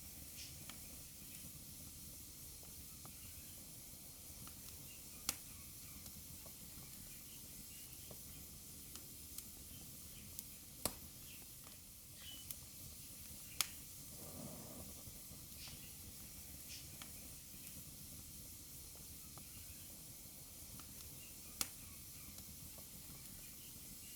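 Wood fire burning in a fireplace: a steady soft hiss with scattered faint crackles and four sharp, loud pops spread through.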